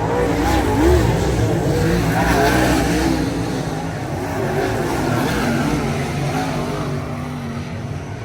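Several race car engines running hard around a track, their pitch rising and falling as they accelerate and lift, with a low rumble underneath.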